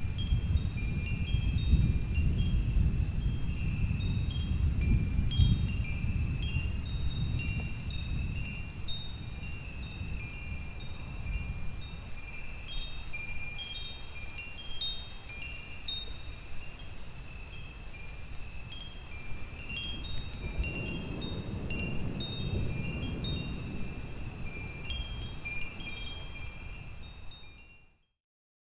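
Wind chimes tinkling irregularly, many short, high ringing notes, over a low rumble that is strongest at the start and swells again about twenty seconds in. It all cuts off near the end.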